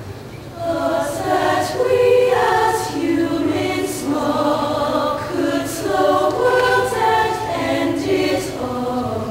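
High school show choir of women's voices singing in harmony. The voices swell in about half a second in after a brief dip and move through sustained, shifting chords.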